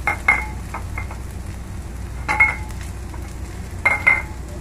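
Wooden spoon stirring diced onion in a hot frying pan, knocking against the pan in three short ringing clinks, over a light sizzle of frying.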